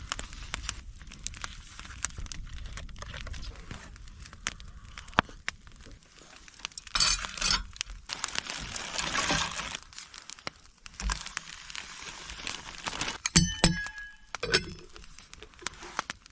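Breakfast being set up by hand: rustling and crinkling, scattered light clicks and knocks, a longer rush of rustling in the middle, and a sharp ringing clink of cookware about 13 seconds in.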